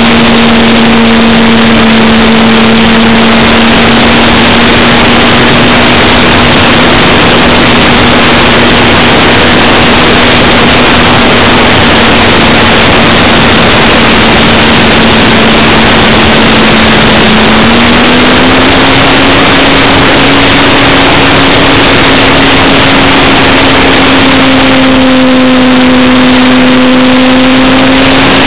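Parkzone T-28 Trojan RC plane's electric motor and propeller droning at one steady pitch under a loud rush of wind over the onboard microphone. The pitch steps up a little about two-thirds of the way through.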